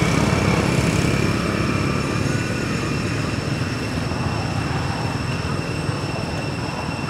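Steady low rumble with thin, steady high-pitched tones above it, and a faint short wavering call about two seconds in.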